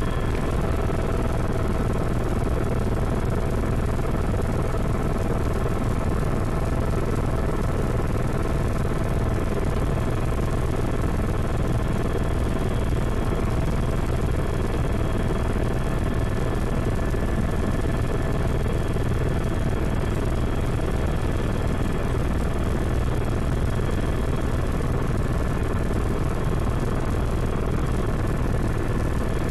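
Helicopter cabin noise in steady flight: a constant low rotor and engine drone with a steady whine of several fixed tones above it, heard from inside the cabin.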